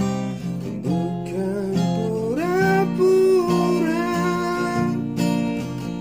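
Acoustic guitar strummed as accompaniment to a man singing in a slow ballad, his voice gliding up about two seconds in and holding long notes.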